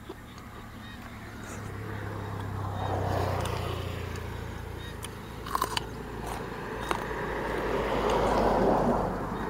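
Close-up biting and chewing of a raw bitter gourd, with a few sharp crunches a little past halfway.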